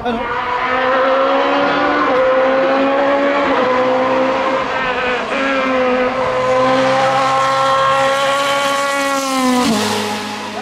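Rally car engine at high revs, its note dipping briefly a few times as it changes gear, then falling sharply near the end as the throttle is lifted.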